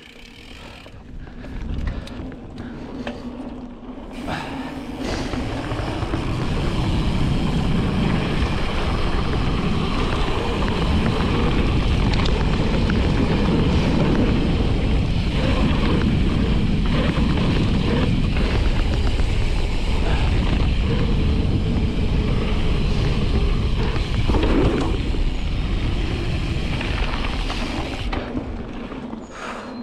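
A mountain bike (Specialized Status 160) riding fast down a dirt trail: wind rushing over the camera microphone with knobby tyres rolling and the chain and frame rattling over bumps. The rush builds over the first few seconds and eases off near the end.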